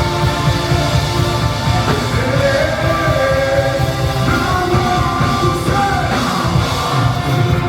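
Live gospel worship music: a loud band with a strong beat and singing voices.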